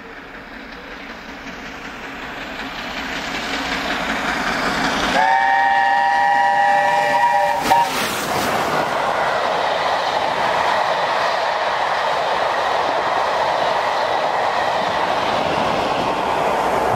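LNER A4 streamlined steam locomotive approaching at speed, growing louder. It sounds its chime whistle, a chord of several notes held for about two and a half seconds. A sharp crack comes as it draws level, then the steady noise and clickety-clack of its coaches running past.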